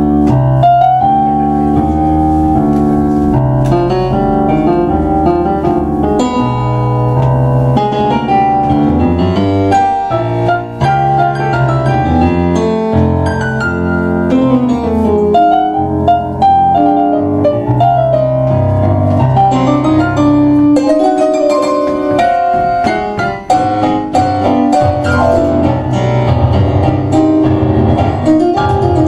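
Two digital stage pianos, one a Kawai MP6, playing a tango together as a piano duo. A steady, loud bass line runs under chords and a moving melody.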